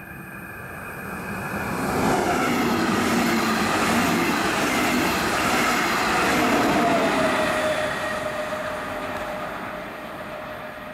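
Regional express train hauled by DB class 143 electric locomotive 143 135, with double-deck coaches, passing at speed: the rolling noise of wheels on rails builds over the first couple of seconds, stays loud while the coaches go by, and fades as the train draws away. A whine drops in pitch as it passes, near the end of the loud part.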